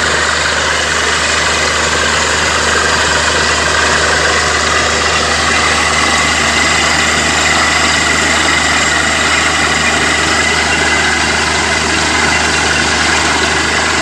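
Borewell drilling rig running: a loud, steady engine noise that does not change in pace.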